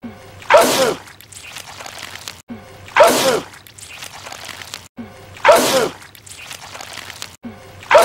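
A man sneezing out goo, wet and loud, the same sneeze repeating about every two and a half seconds: three full sneezes, with a fourth starting at the very end.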